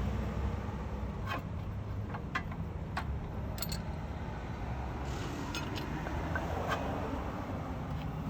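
Scattered light clicks and taps of metal tools and brake parts being handled, about half a dozen in the first six seconds, over a steady low rumble in the background.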